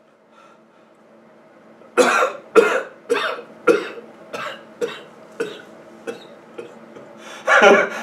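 A man coughing in a fit of about ten harsh coughs, roughly two a second, growing weaker. Near the end he breaks into louder laughing.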